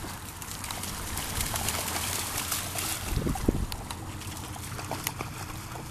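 Dogs wading and splashing through shallow water, a steady trickling slosh with small splashes.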